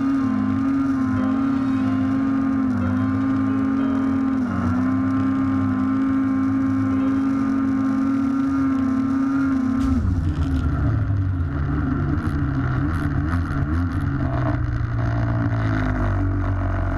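Polaris snowmobile engine running at steady high revs, its pitch dipping briefly a few times, then falling to a lower, rougher note about ten seconds in.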